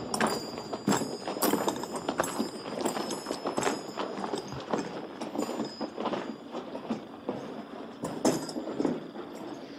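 Footsteps on wood: repeated hollow knocks of shoes on wooden boards, about one to two steps a second.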